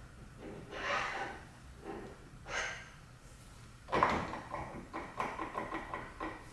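Metal parts of a milling machine's leadscrew and power-feed drive being handled and fitted: a few scraping slides, then a sharp metallic clank about four seconds in with a brief ringing note, followed by a string of light clicks and taps.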